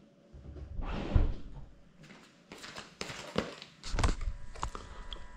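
Handling noise on a crashed FPV drone's onboard GoPro as it is touched and picked up: rubbing building to a loud thump about a second in, then a string of sharp knocks and taps.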